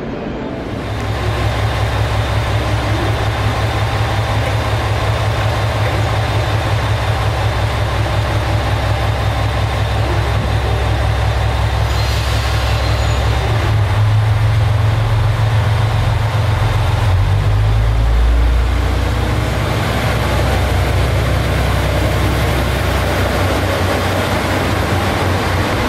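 Diesel limited express train's engines running at the platform with a steady low throbbing. About fourteen seconds in they work harder and grow louder as the train moves off.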